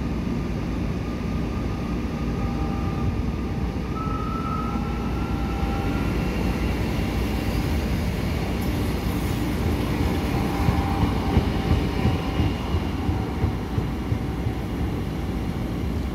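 Trenitalia Minuetto electric multiple unit running past on the rails: a steady rolling rumble with a faint whine at a few steady pitches, loudest as it goes by about ten to thirteen seconds in.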